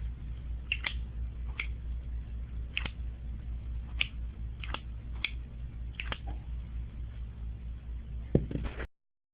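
Scattered light clicks and taps from a Zippo lighter being handled, its metal case and insert knocking, over a low steady hum; the last knock, near the end, is the loudest.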